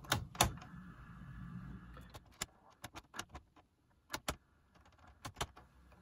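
Sharp clicks of a switch on a Philips ARC33 radio cassette being worked back and forth, mostly in pairs, with a faint hum under the first couple of seconds. The switch is being tested after its solder joints were reflowed to cure a suspected dry joint.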